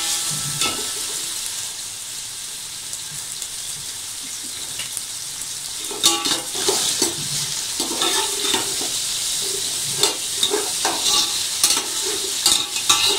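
Raw chicken slices sizzling in hot oil in an aluminium pot while a metal spatula stirs them. From about six seconds in, the spatula scrapes and clinks against the pot over the steady sizzle.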